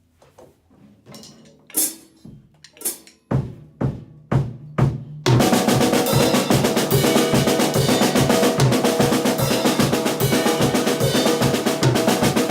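Drum kit played in a rehearsal: scattered drum hits and a couple of cymbal crashes, then about five seconds in the full kit and band come in together, playing loud and steady.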